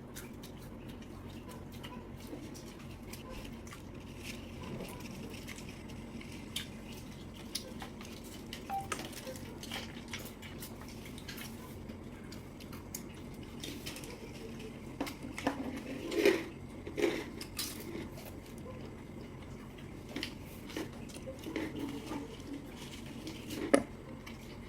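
Eating sounds at a seafood meal: scattered clicks and clinks of utensils and shells against dishes, with wet squelching, and a few louder, sharper clacks in the second half.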